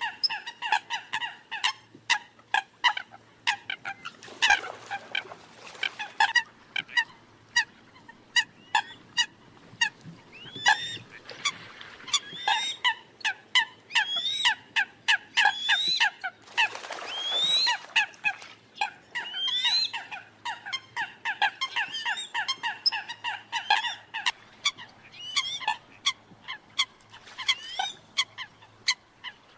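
Eurasian coots calling: fast runs of short, sharp, honking calls, several overlapping, some sweeping upward in pitch. These are the calls of rival, competing coots, used as a trapping lure. There are two brief stretches of rushing noise, one a few seconds in and one just past the middle.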